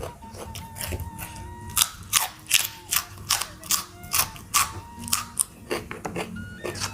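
Close-miked crunching of raw vegetables being chewed, sharp crunches coming about two to three a second and loudest in the middle.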